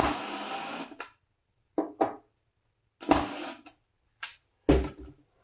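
A series of sharp knocks and clunks from a clamp being set and worked against a heavy wooden sign. The first is the loudest, with about a second of ringing, followed by a close pair of short knocks, another ringing knock and a couple of lighter clicks and thuds near the end.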